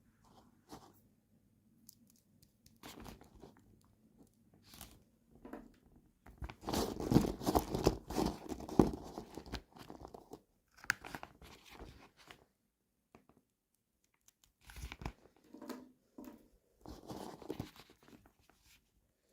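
Toy packaging being handled and torn open by hand: irregular crinkling, crunching and tearing, busiest in the middle, with shorter bursts near the end.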